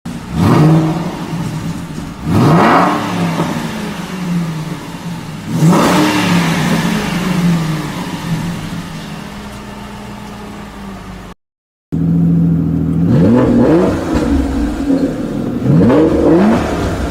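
Aston Martin Vantage engine revved three times, each rev climbing and then dropping back, settling toward idle between them. After a brief cut, an Aston Martin Vanquish V12 is blipped three times in quicker succession.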